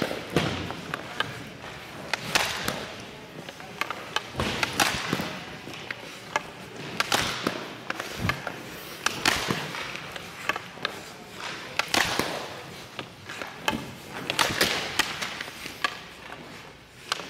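Hockey pucks being shot at a goaltender on ice: sharp cracks of stick blade on puck and puck off pads and glove, repeating every two to three seconds, between short scrapes of skate blades as the goalie pushes across the crease.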